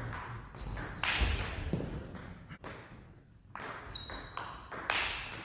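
Table tennis rally: the celluloid-type ball clicking off the bats and table, ringing in a large hall. Two brief high squeaks, about half a second in and again about four seconds in.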